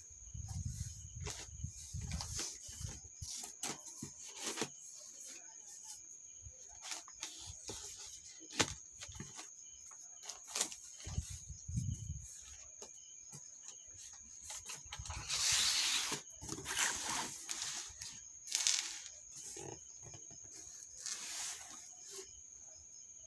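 Hands handling a cardboard shipping box and the crinkly plastic-wrapped packages inside: scattered clicks, crinkles and dull knocks, with louder rustling about two-thirds of the way through.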